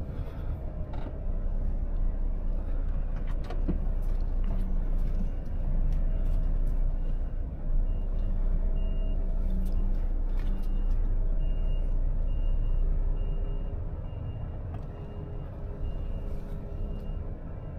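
Volvo FH truck's diesel engine running at low speed, heard from inside the cab, while the truck reverses. A reversing alarm beeps at an even pace from about five seconds in.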